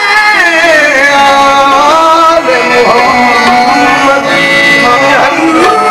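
Qawwali music: harmonium and electronic keyboard playing a melodic interlude over tabla drumming.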